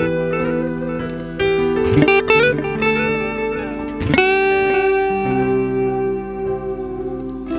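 Instrumental background music: a melody of plucked string notes left to ring, with a few quick slides, over lower held notes.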